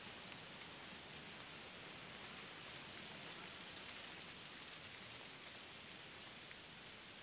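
Faint, steady forest ambience: an even hiss with a faint, short, high chirp repeating every second or two.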